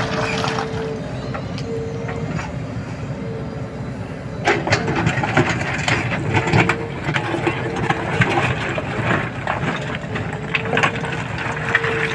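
JCB 3DX backhoe loader's diesel engine running steadily, with a whine that comes and goes. From about four seconds in, a clatter of sharp knocks joins it as stones are shifted with the machine.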